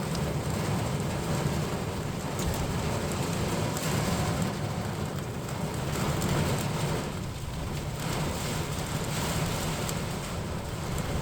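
Steady rain noise with scattered drop ticks over a continuous low rumble, as from a vehicle moving in the rain.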